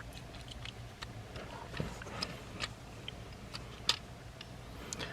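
Light plastic clicks and taps from a Transformers Legacy Motormaster toy's parts being moved by hand during transformation. There are about a dozen scattered clicks, with a sharper one about four seconds in.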